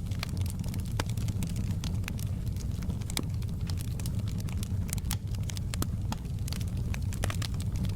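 Fireplace wood fire burning: a steady low rumble of the flames with frequent irregular sharp crackles and pops.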